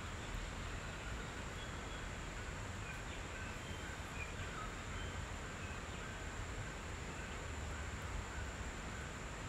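Outdoor nature ambience: a steady hiss over a low wind rumble, with a constant thin high insect drone and faint, short bird chirps scattered through it.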